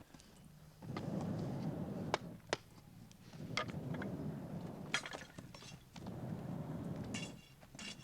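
Sharp, scattered clinks and cracks of tools breaking into the clay furnace and working through charcoal and slag, ending in a cluster of ringing clinks with a metallic ring.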